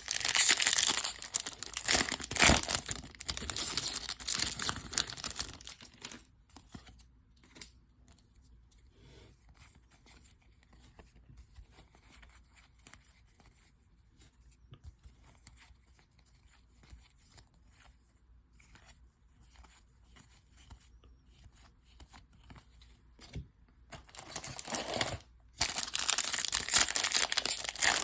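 Foil trading-card pack wrappers being torn open and crinkled, loud at the start and again near the end, with a long quiet stretch of faint rustling between.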